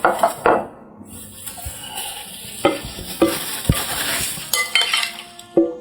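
Kitchen utensils knocking and clinking against dishes while food is stirred, with a rustling scrape between the sharper knocks.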